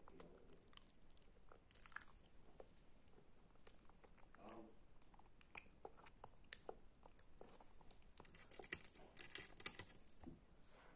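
A person chewing and biting crunchy food close to the microphone: small crunches and clicks throughout, with a louder run of crackling crunches about eight to ten seconds in.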